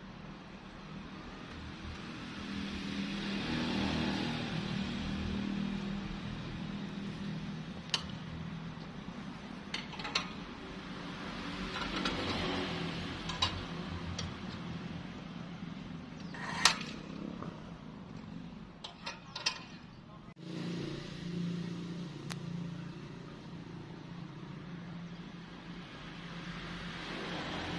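An engine running steadily, swelling and easing in loudness, with scattered sharp knocks and clicks.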